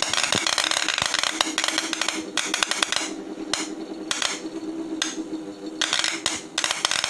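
Homemade CNC EDM sparking: a copper electrode arcing against an aluminium plate under water makes a dense, rapid crackle of electrical discharges. The crackle cuts out and restarts several times in the middle, with a steady low hum underneath.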